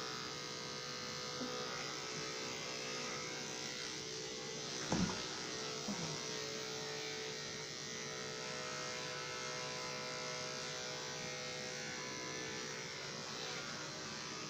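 Electric pet grooming clippers buzzing steadily as they trim the fur behind a puppy's ears, with a short, louder sound about five seconds in.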